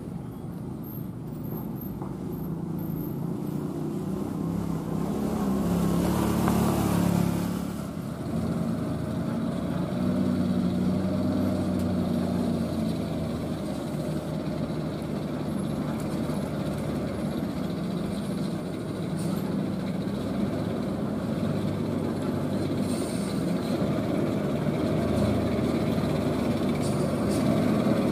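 Loaded Hino dump truck's diesel engine running at low revs as the truck crawls over gravel, growing louder as it approaches. A loud hiss lasts about two seconds, from about six seconds in, and cuts off sharply.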